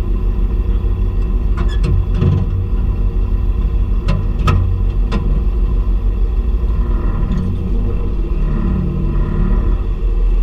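Tractor engine running steadily, with a few sharp clicks or knocks over it.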